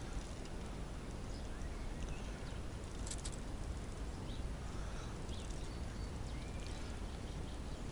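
Steady outdoor background noise with a few faint, short bird chirps and a single brief click about three seconds in.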